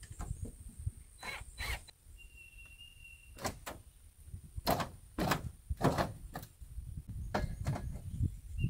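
Irregular knocks and clunks, about ten of them, from an old exterior door being worked on. A brief faint high whistle-like tone sounds about two seconds in.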